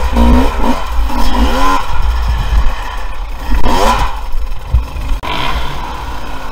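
Off-road enduro motorcycle engine revving up and down in short bursts on rough rocky ground, with a sharp rev about four seconds in. Stones clatter and scrape under the bike.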